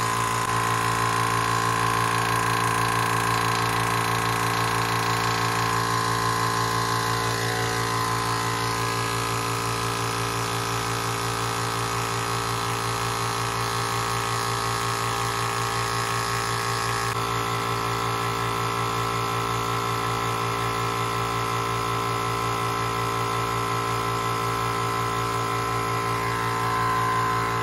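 Small portable WEN air compressor running steadily, a loud even machine hum with a pitched drone, as it pumps air into a resin-casting pressure pot up to about 40 PSI. Its tone wavers briefly about eight seconds in.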